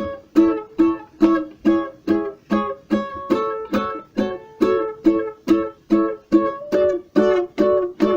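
Concert-size Magic Fluke ukulele with Aquila strings being strummed: a steady rhythm of chords, a little over two strokes a second, each ringing briefly and dying away before the next.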